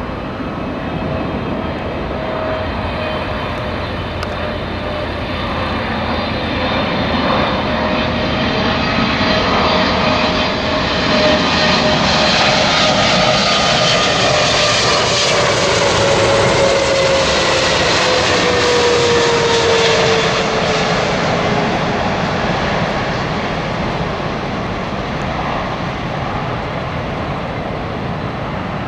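Boeing 777-300ER's GE90 turbofan engines on final approach. The jet noise swells as the airliner passes close by, with a whining engine tone that drops in pitch as it goes past, then eases off.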